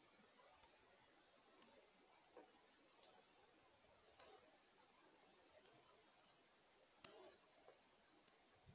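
Northern cardinal giving sharp, high chip calls, seven single notes spaced about a second and a quarter apart.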